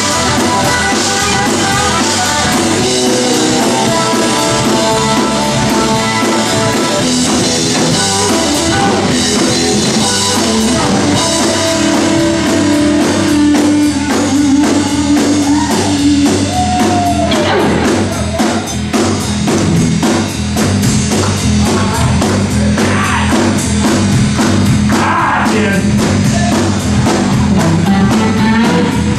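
Live rock band playing: Stratocaster-style electric guitar over bass guitar and a drum kit, with held guitar notes and one note sliding down in pitch about seventeen seconds in.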